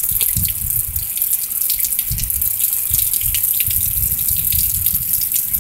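Heavy rain pouring: a steady hiss dotted with many sharp drops and splashes, over a low uneven rumbling.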